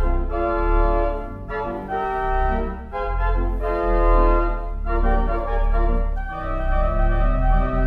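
George S. Hutchings pipe organ playing sustained chords over a deep pedal bass, the chords changing every second or so.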